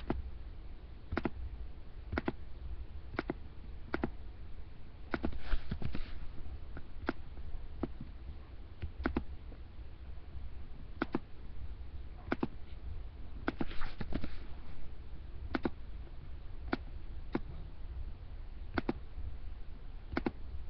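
Computer mouse clicking, single sharp clicks about once a second with uneven gaps, as posts are liked, commented on and shared. Two short soft rustling hisses come in between, a few seconds in and about two-thirds of the way through.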